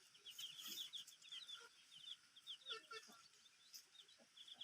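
Hen clucking softly a few times while her chicks keep up a rapid, faint peeping.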